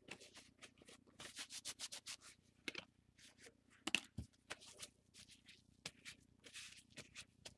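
Paper towel wiping leftover shaving cream off a smooth board: a faint, quick run of short rustling rubs, with one sharper tap about four seconds in.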